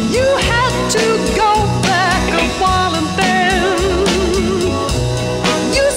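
Music: a 1960s orchestral pop song with a steady drum beat under a melody line with wide vibrato.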